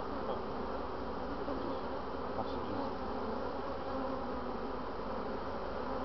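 A honeybee swarm buzzing close up: a steady, dense hum of many bees' wings.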